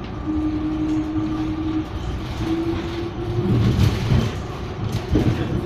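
Cabin sound of a BN T2000 low-floor tram in motion: continuous rumble of wheels on rail with a steady hum from the drive that breaks off about two seconds in and briefly returns. The rumble grows heavier about three and a half seconds in, and a few knocks come near the end.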